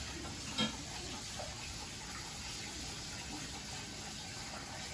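Steady low hiss of background noise, with one light knock about half a second in.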